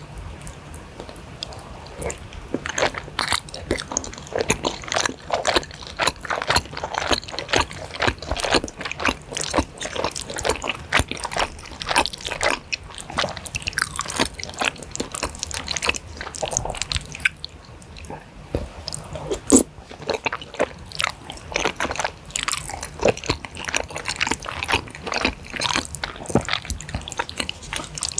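Close-miked wet chewing of spicy flat rice noodles and meatballs in saucy broth: a steady stream of small wet clicks and mouth smacks, with one sharper click about two-thirds of the way through.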